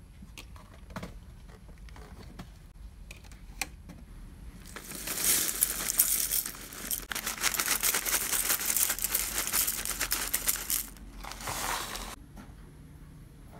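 Corn flakes being poured from a foil inner bag into a glass bowl: a dense crinkling and rattling starts about five seconds in and lasts some six seconds, with a short break and a last burst near the end. Before it come a few light scattered clicks of handling.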